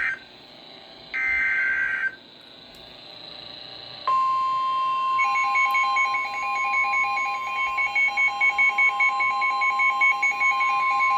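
A NOAA Weather Radio SAME header plays as two short buzzy data bursts about a second apart. About four seconds in, the steady 1050 Hz weather radio warning alarm tone starts, and a second later a fast pulsing two-pitch beep joins it. The tones announce an incoming warning broadcast.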